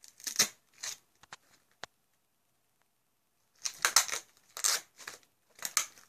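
Tape being ripped off and paper wrapping torn from a gift: a few short rips, a lull of about two seconds, then a quicker run of loud rips.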